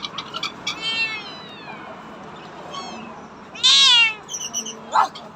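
Caged cats or kittens meowing: several drawn-out meows that rise and fall in pitch, the loudest about three and a half seconds in, with a few short clicks near the start and a sharp knock near the end.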